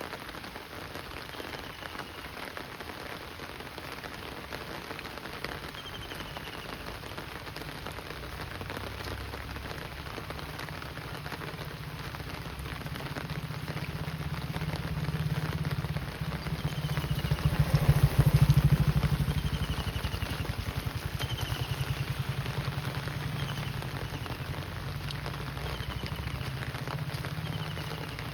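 Steady monsoon rain falling on the ground and surroundings. A vehicle passes, growing louder to a peak about two-thirds of the way through and then fading. A few short, faint, high chirps come and go.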